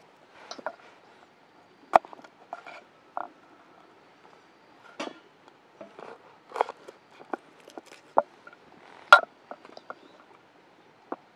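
Irregular clicks, taps and knocks of objects being handled, the sharpest about two seconds in and another about nine seconds in.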